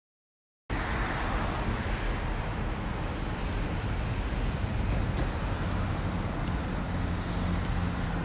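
Steady rushing roar of a typhoon-swollen river, with wind buffeting the microphone, cutting in abruptly under a second in.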